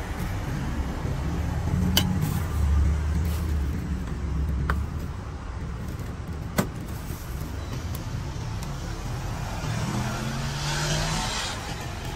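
Motor vehicles passing on the street: a low engine hum, loudest in the first few seconds, and another vehicle going by with hiss near the end. A few sharp clicks of a metal spoon against the steel serving bowls.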